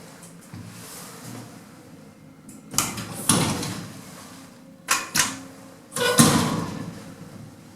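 Lift doors operating, with a series of sharp clunks and knocks that ring briefly: a pair about three seconds in, two more near five seconds and a last, loudest one about six seconds in.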